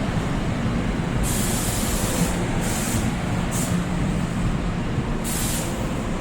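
Heavy rain falling steadily over the low rumble of a commuter train, broken four times by short bursts of high hiss.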